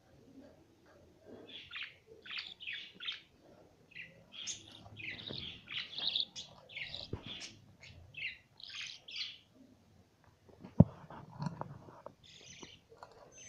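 Budgerigars, a green hen and her 34-day-old chicks, chirping in quick short calls in the nest box. Near the end there is one sharp knock followed by some rustling.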